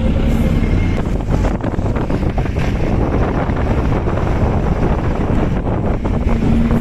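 Wind buffeting the microphone on a moving vehicle, a loud, steady rush, with the vehicle's engine and road noise running underneath.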